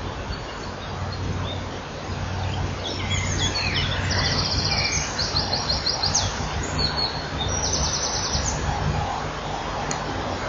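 Bird sounds: several short bursts of a rapid, high buzzing trill between about three and nine seconds in, over a steady low hum and hiss.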